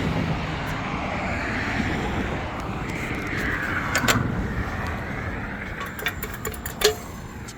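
Road traffic passing, with tyre and engine noise swelling and fading. Near the end there are several sharp clicks and knocks, the loudest a little before the end.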